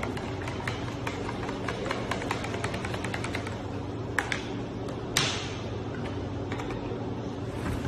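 A thin rod stirring liquid in a plastic jug, knocking lightly against the side in a quick run of small ticks for the first three seconds or so, then a few separate sharper clicks, the loudest about five seconds in with a short hiss after it. A steady low hum runs underneath.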